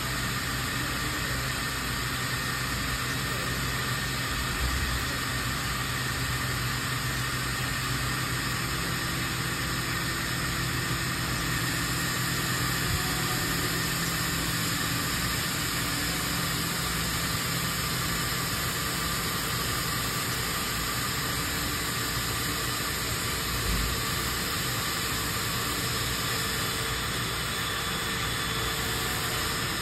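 Steady machine hum and hiss from a C.R. Onsrud 5-axis CNC router as its head moves into position above the workpiece, not yet cutting, with a few faint steady tones over the hiss. Two brief low thumps, about five seconds in and near the end.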